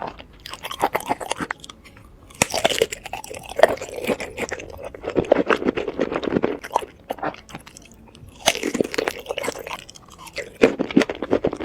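A person chewing and crunching food in several bouts with short pauses between them, a dense crackle of bites and chews.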